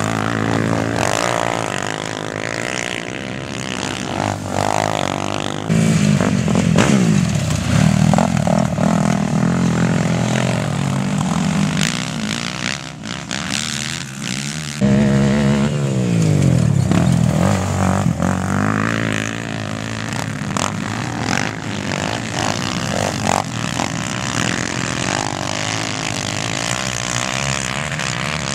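Engines of racing quad bikes revving hard and easing off as they run the dirt track, the pitch climbing and falling again and again, with a sudden jump in loudness about halfway through.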